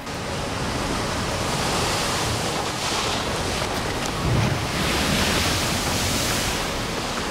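Hurricane-force wind blowing hard across the microphone together with heavy surf crashing against a seawall, a loud rushing roar that surges in gusts about three seconds in and again from just past four seconds to over six.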